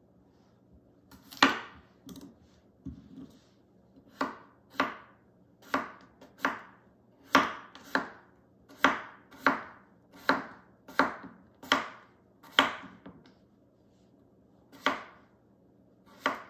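Kitchen knife slicing small red potatoes thin on a wooden cutting board: about fifteen sharp knife strikes on the board, mostly about two-thirds of a second apart, with a lull just before the last two.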